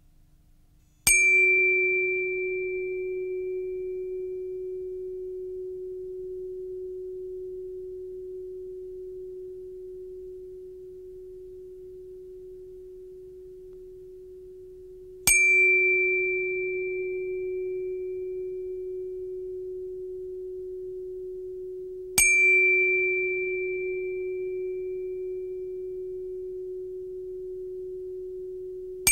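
A pure, ringing metallic tone struck three times, about a second in, about 15 seconds in and about 22 seconds in. Each strike opens with a bright ping that dies away within a few seconds, leaving a steady mid-pitched hum that slowly fades until the next strike.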